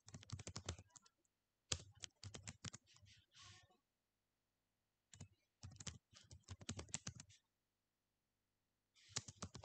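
Computer keyboard typing in quick bursts of keystrokes with short pauses between them, and a longer pause near the end before the typing resumes.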